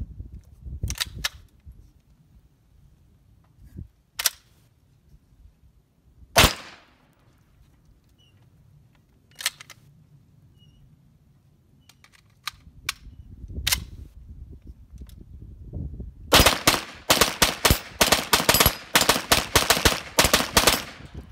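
MP5-clone with a binary trigger: a few scattered single reports and clacks while the gun is worked after a stoppage, then a fast string of shots over the last five seconds, fired on both pull and release of the trigger.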